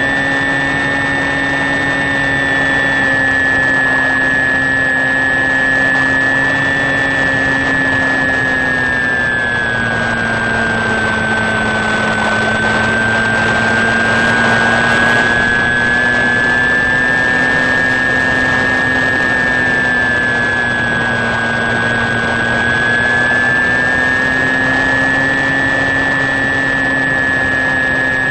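HobbyKing Sky Eye RC plane's electric motor and pusher propeller running in cruise flight, a steady whine heard from the onboard camera. Its pitch sags slightly about a third of the way in and again about three-quarters through, then comes back up.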